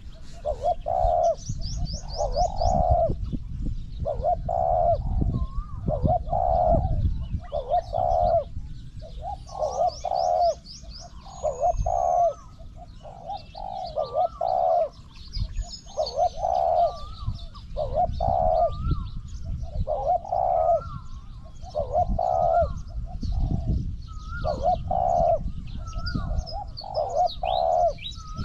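Spotted dove cooing over and over, one phrase about every second, some with a short rising note on top. Small birds chirp and trill faintly high above it, over a low rumble.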